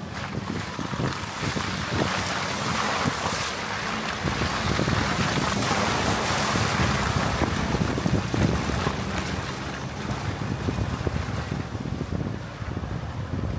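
Pickup truck driving slowly over rough ground, heard from a microphone mounted outside on the body: a steady low engine and tyre rumble under heavy wind noise on the microphone, with a few short knocks.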